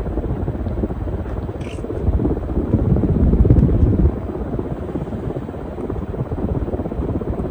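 52-inch Gulf Coast Meridian ceiling fan running on high speed: a steady rush of moving air with the blades' downdraft buffeting the microphone, swelling a little about three seconds in.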